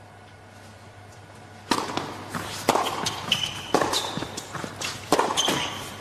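Tennis rally on an indoor hard court: racquets strike the ball about once a second, starting about two seconds in, with brief shoe squeaks on the court between shots.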